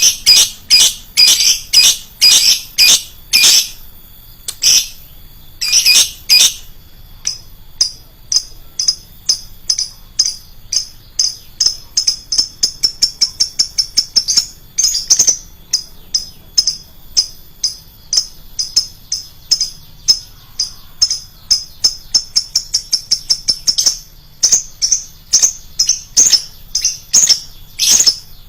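Lovebird calling: loud, shrill chirps packed closely together at first, then a long run of short, high chirps at about four a second, and a few louder shrill calls again near the end.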